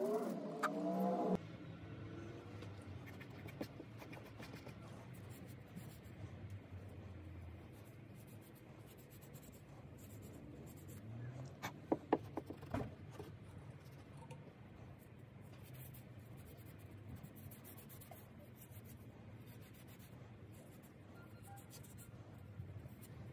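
Faint scratchy rubbing of an abrasive pad and cloth on small brass blow-torch parts, with a short cluster of sharp clicks of metal parts being handled about halfway through.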